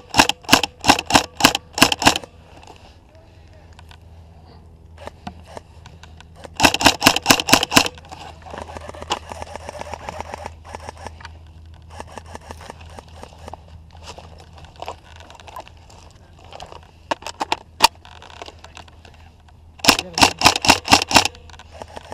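Tokyo Marui High Cycle AUG airsoft electric gun firing three full-auto bursts: a two-second burst at the start, a shorter one about seven seconds in, and another near the end. Quieter scattered shots can be heard in between.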